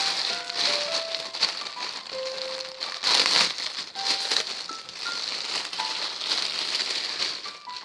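Plastic packaging crinkling and rustling as it is handled and opened, in an irregular, continuous stretch that grows louder about three seconds in. Soft background music with light piano-like notes plays underneath.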